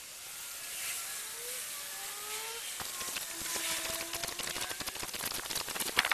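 Pond water fizzing and crackling as fine bubbles rise and pop in the foam layer on the surface after the Sera Pond Algokill algae treatment is added. The crackle grows denser from about halfway through, with one sharper pop near the end.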